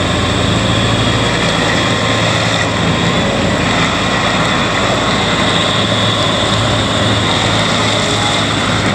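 Bobcat T650 skid steer's diesel engine running steadily at a constant speed, with a steady whine over the engine hum.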